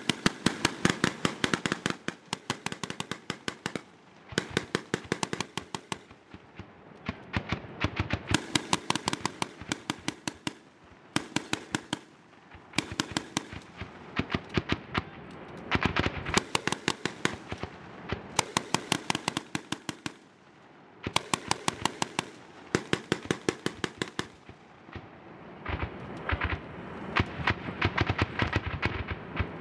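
Rapid small-arms gunfire in repeated bursts of a second or two, several sharp shots a second, with short pauses between bursts.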